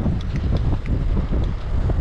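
Wind buffeting the microphone, a steady low rumble, with a few faint high ticks scattered through it.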